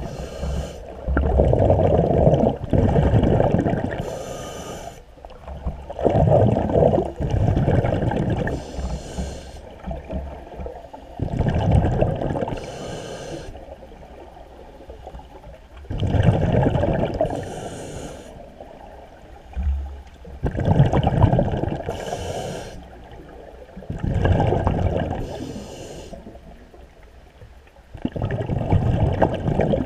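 Scuba diver breathing through a regulator, heard underwater: a short hiss on each inhale, then a longer, louder rumble of exhaled bubbles, repeating about every four seconds.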